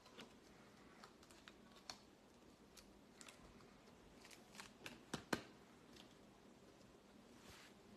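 Faint, scattered light clicks and taps against quiet room tone, with a quick run of them about four to five and a half seconds in, the loudest near the end of that run.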